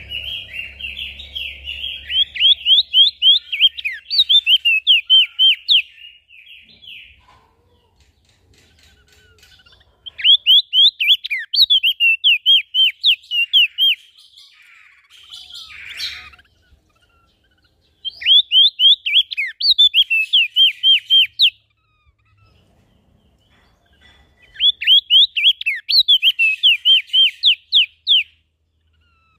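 A songbird singing in repeated bouts, each a rapid run of sharp, falling whistled notes at about five a second lasting three to four seconds, with short pauses between bouts and a few scratchier calls in the middle.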